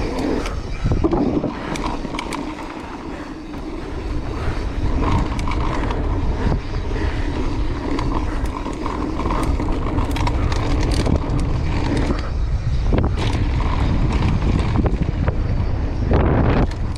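Mountain bike riding fast down a dirt trail: tyres rolling over dirt, with frequent clicks and rattles from the chain and frame over bumps, and wind rumbling on the camera microphone.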